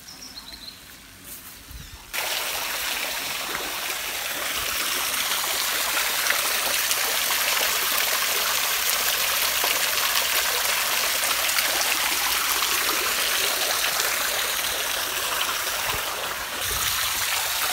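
Water spilling off a small concrete check dam and splashing into the pool below: a steady rushing hiss that starts abruptly about two seconds in.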